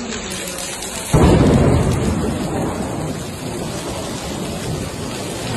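Heavy rain with a loud thunderclap about a second in that rumbles and fades over the next second, then steady rain noise.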